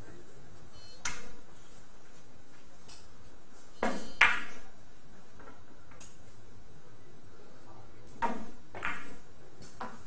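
Billiard balls knocking: sharp hard clicks of cue and balls striking on a billiard table, one about a second in, a close pair about four seconds in with the second the loudest, and another pair a little after eight seconds.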